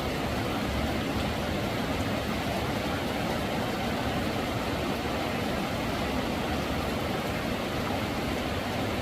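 Steady rushing noise of water with no distinct events.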